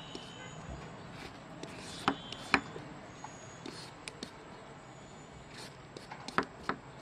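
Metal hand peeler scraping the skin off a green papaya in short strokes, with a few sharp knocks and taps: two close together about two seconds in and two more near the end.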